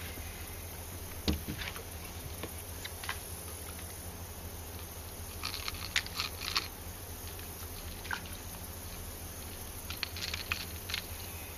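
Light, irregular clicks and rattles of a topwater lure's hooks being worked out of a caught bass's mouth by hand, in two clusters about halfway through and near the end, over a steady low rumble.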